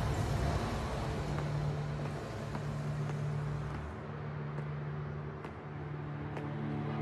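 A car driving off, its engine and tyre noise fading over the first few seconds, over a low, steady music drone.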